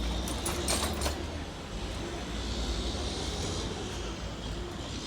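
Motor vehicle traffic: a steady low engine rumble, with a vehicle passing as a hiss that swells and fades about three seconds in, and a few short knocks in the first second.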